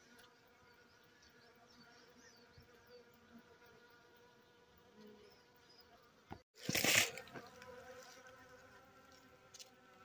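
Honeybees buzzing in a steady low hum as they gather at honeycomb bait. About six and a half seconds in, a brief loud rustling noise cuts across the buzzing.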